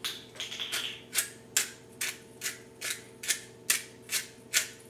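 Hand pepper mill being twisted, grinding black peppercorns in a steady run of short gritty rasps, about two to three a second.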